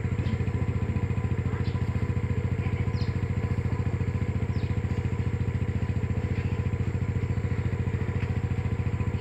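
A small engine running steadily, a rapid, even throb that does not change.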